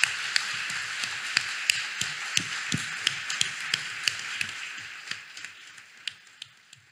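Audience applause dying away, thinning to a few scattered claps near the end.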